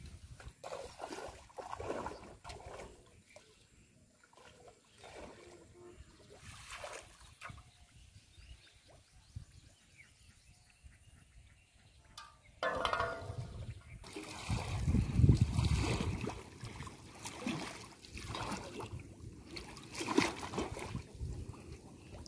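Pond water sloshing, splashing and trickling as someone wades through it. The splashing gets suddenly louder about halfway through, with a low rumble.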